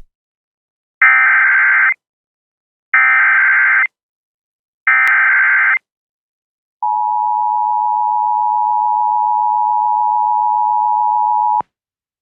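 Emergency alert header opening a tornado warning broadcast: three buzzing bursts of SAME data tones, each about a second long and about two seconds apart, then a steady attention tone for about five seconds that cuts off sharply.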